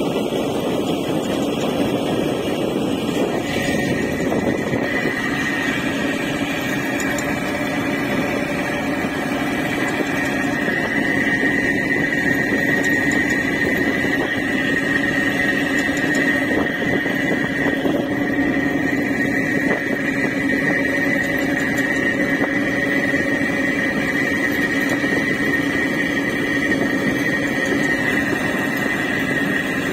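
Boat engine running steadily on a river crossing, with water rushing past the hull. A steady high whine joins about three seconds in.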